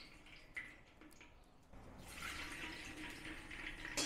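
Hot cooking oil poured from a steel ladle into an unglazed clay handi: a few light drips, then a steadier trickling hiss of liquid from about two seconds in, ending in a sharp knock.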